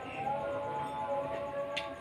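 Background music with sustained melodic tones, and one short sharp click near the end.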